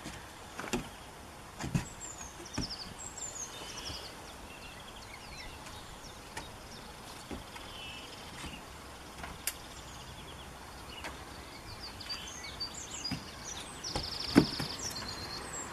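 A goat's hooves knocking on the board roof of a small wooden shelter as it steps and shifts its weight: a handful of scattered sharp knocks, the loudest near the end. Birds sing throughout with short, repeated falling chirps and trills.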